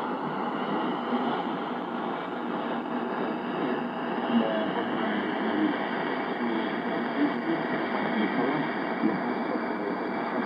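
Shortwave AM reception from a Yaesu FRG-7 receiver's loudspeaker, tuned to Radio Vanuatu on 9960 kHz: a weak signal, mostly steady static hiss with the broadcast faintly under it.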